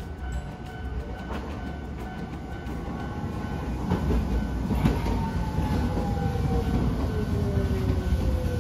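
Hiroshima Electric Railway 3800-series tram approaching and slowing into a stop, growing louder as it nears. A whine falls slowly in pitch as it slows, with a few clacks of the wheels over the rail.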